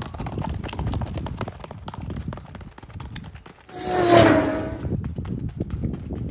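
Hoofbeats of a horse running on a gravel road, a quick, steady clatter of knocks. About four seconds in, a loud, slightly falling call lasting about a second rises over them.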